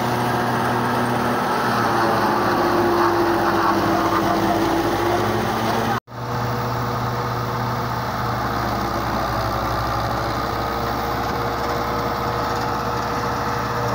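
Fiat 640 tractor's diesel engine running steadily under load, driving a PTO forage chopper that is cutting green fodder and blowing it out of the spout. The sound cuts out for a moment about six seconds in, then carries on.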